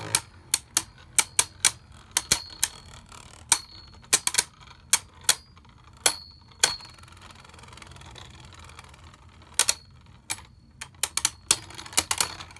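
Two Beyblade Burst spinning tops clashing in a plastic stadium: a run of sharp, irregular clacks, some with a brief ring after them. The clacks ease off in the middle, then come in a fresh flurry near the end.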